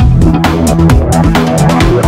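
Background electronic music with a steady beat and a bass line.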